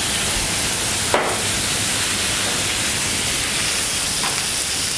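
Frying pan of fish and seafood sizzling steadily on a gas burner while the brandy flambé burns off. A single sharp knock sounds about a second in.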